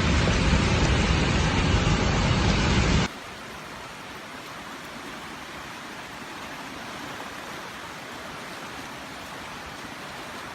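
Floodwater rushing, a steady noisy roar with no rhythm: loud and heavy for about three seconds, then it cuts abruptly to a quieter, thinner rush.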